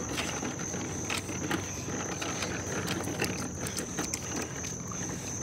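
Rumbling, rattling noise of riding a bicycle, with the handheld phone's microphone jostled and rubbed, giving many small irregular clicks and knocks. A steady high-pitched tone sounds throughout.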